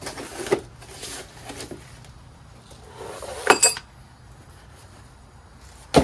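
Unpacking a plastic-wrapped propane torch and its cardboard packing: rustling and scraping of the wrap and cardboard, then a sharp metallic clink about three and a half seconds in as the metal torch parts knock together, and a sharp knock at the very end.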